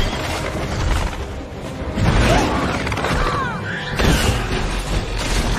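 Action-film battle soundtrack: music mixed with sound effects, with heavy booming hits about two and four seconds in and a few short gliding screeches.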